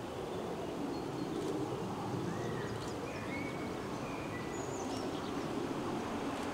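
Birds chirping over a low, steady rumble from the approaching steam locomotive TKVJ No. 12, which slowly grows louder.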